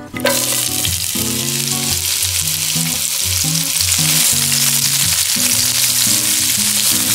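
Sliced onions sizzling steadily as they fry in melted butter in a nonstick frying pan, stirred with a wooden spatula. The sizzle starts suddenly right at the beginning.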